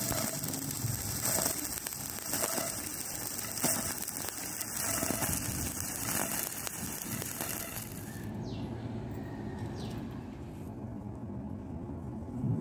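Stick welding arc on thin steel square tubing, a steady crackle as the electrode burns. The arc stops about eight seconds in, leaving only low background noise.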